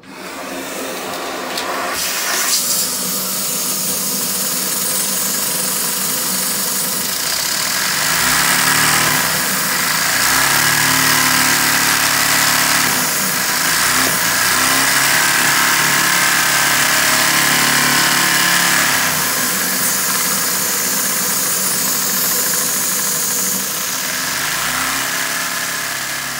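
A vacuum cleaner's suction comes on suddenly and runs a LEGO inline two-cylinder vacuum engine. The steady noise rises and falls in pitch and loudness as the engine's throttle is opened and closed, louder through the middle, and eases off near the end.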